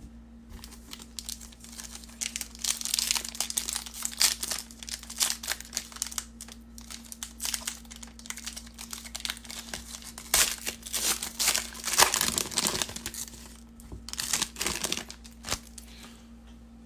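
Foil wrapper of a trading card pack being torn open and crinkled by hand, in irregular crackling spells that die away near the end.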